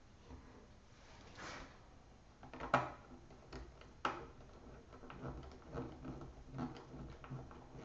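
Quiet handling of a laptop's screen assembly while its screws are driven in with a small screwdriver: scattered light clicks and taps, with two sharper clicks about three and four seconds in.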